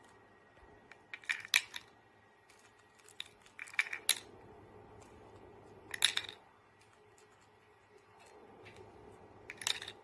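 Plastic rings clacking against the pegs and acrylic base of a ring-stacking toy as a cockatoo drops them on, in four short clusters of clicks and clatters a few seconds apart.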